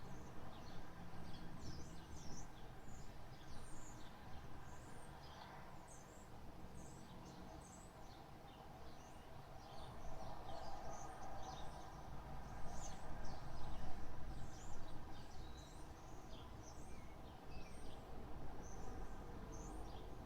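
Small birds chirping and singing throughout, many short high calls, over a low steady background rumble.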